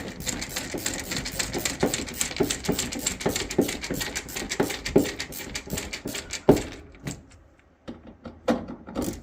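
Ratcheting screwdriver tightening screws into a dryer's front panel: a quick run of ratchet clicks that stops about two-thirds of the way in, with a few more clicks near the end.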